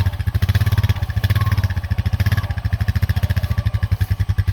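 A small engine running steadily with a rapid, even putter.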